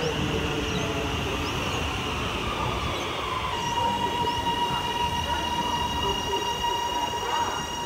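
High Capacity Metro Train (electric suburban train) moving slowly past along the platform, its wheels and running gear rumbling on the track. About three and a half seconds in, a high whine slides slightly down in pitch and settles into a steady tone, which fades just before the end.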